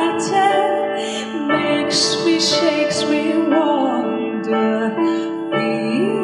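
A slow song: held keyboard chords with a woman's voice singing gliding phrases over them, the chords changing about a second and a half in and again near the end.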